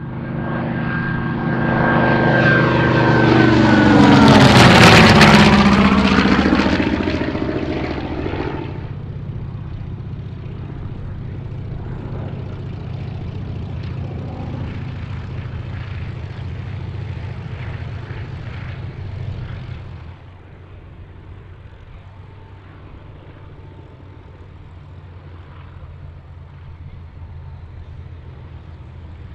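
WWII US Navy warbird's radial piston engine and propeller in a fast low flyby: it swells to a peak about five seconds in and the engine note drops steeply in pitch as it passes. After that, steadier, quieter radial-engine propeller sound from other warbirds running low along the runway, stepping down in level about twenty seconds in.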